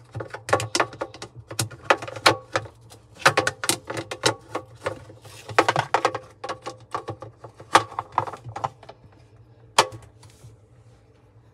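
A fast, irregular run of sharp clicks and knocks over a steady low hum, thinning out about ten seconds in.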